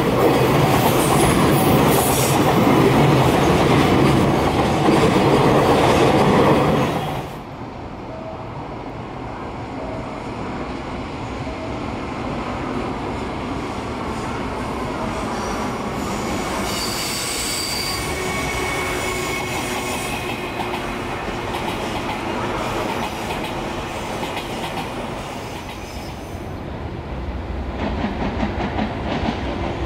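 A train running past on curved track, with steel wheels squealing high and clattering over the rail joints. The sound is loud for the first seven seconds, then drops abruptly to a quieter run, with the sharpest wheel squeal about halfway through.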